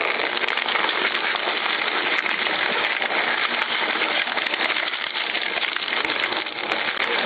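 Industrial twin-shaft shredder's rotating cutter discs tearing and crushing scrap, a loud, dense, steady crackling and crunching with scattered sharp snaps.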